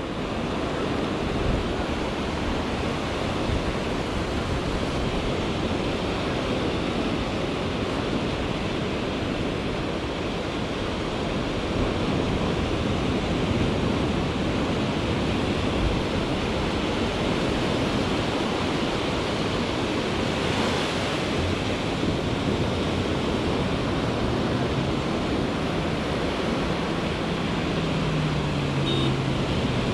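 Ocean surf breaking and washing up a sandy beach, a steady rush of water, with some wind on the microphone.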